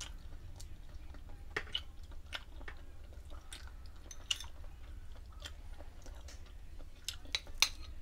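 A person chewing soft, sticky pichi-pichi (steamed grated-cassava cakes coated in grated coconut) close to the microphone. Scattered sharp clicks sound through it, the loudest a cluster about seven seconds in.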